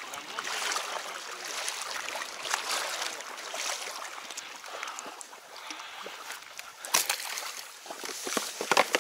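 Water sloshing and oars dipping as an inflatable boat is rowed, in strokes about a second apart. Near the end come a few sharp splashes as duck decoys are tossed onto the water.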